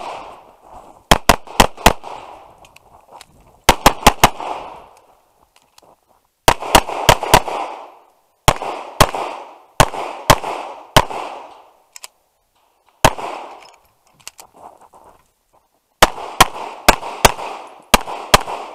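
Tanfoglio Stock 2 pistol firing strings of rapid shots, in quick pairs and bursts, each shot ringing out briefly, with pauses of a second or two between strings.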